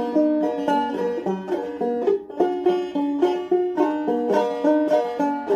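A five-string banjo played solo, picked in a steady run of single bright notes that ring and die away quickly, with a short break in the run about two seconds in.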